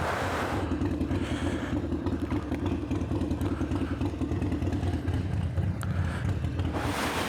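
Harley-Davidson Forty-Eight's air-cooled 1200 cc V-twin engine idling, with a steady rhythmic pulse.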